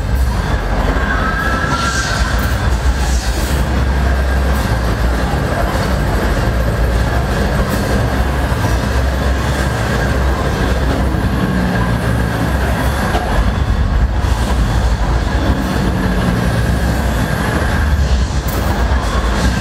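Ride-film soundtrack of a roller coaster: a steady, loud rumble and clatter of cars running along the track, with a brief high squeal of the wheels about a second and a half in.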